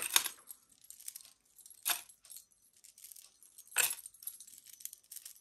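Pearl and bead bracelets clinking and jangling as they are handled and set down. There are three sharper clacks about two seconds apart, with lighter rattling between.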